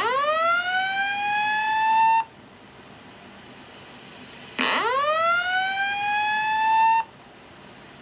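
A fire alarm voice-evacuation speaker sounds the whoop alert tone. It plays two rising sweeps of about two seconds each, the second starting about four and a half seconds in.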